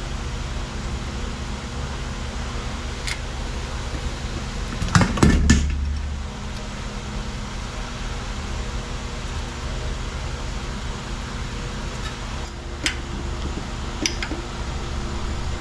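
Hand tools and a brass gauge fitting clinking on a cast-iron intake manifold as the fitting is threaded in and then gripped with locking pliers and a wrench. A few light metal clicks, a louder clatter with a thump about five seconds in, and more clicks near the end, over a steady low hum.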